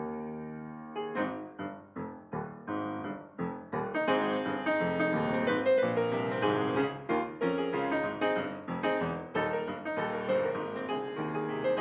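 Piano music: a melody of struck notes, each dying away, growing fuller and busier about four seconds in.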